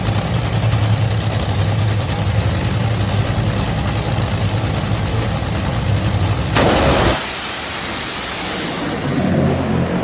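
Top Fuel dragster engines running very loud, a steady low drone under a broad rasping noise. Near seven seconds there is a brief louder blast, then the sound drops abruptly to a quieter engine note.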